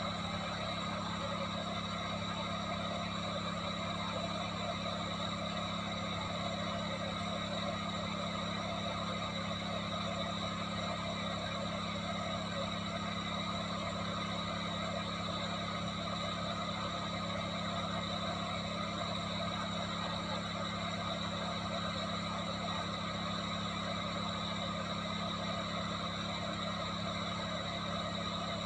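Small electric fan running steadily: an unchanging whir with a low hum.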